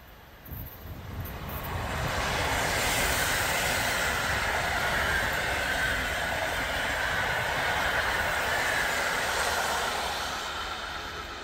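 Express passenger train hauled by a PKP Class EP09 electric locomotive passing close at about 91 km/h: a rushing noise of wheels on rail that builds over the first two seconds, holds steady for about eight seconds as the coaches go by, and fades near the end as the last coach passes.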